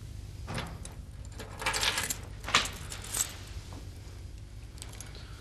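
A bunch of keys jangling and clinking as they are picked up off a table: a few short metallic rattles, the sharpest about halfway through.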